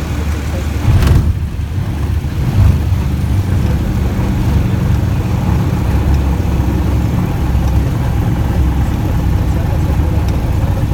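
Cessna 170 light aircraft's piston engine and airflow making a steady, loud low rumble, with a sharp knock about a second in and a smaller one a couple of seconds later.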